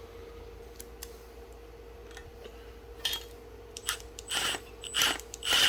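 Light metallic clicks and short scrapes of bolts and hand tools being handled while an exhaust manifold is bolted onto an engine, starting about three seconds in, over a faint steady hum.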